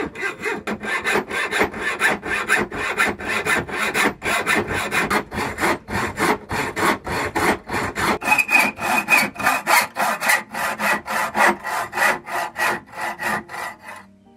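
Hand hacksaw cutting a steel rod in quick, even back-and-forth strokes, about four a second, stopping just before the end.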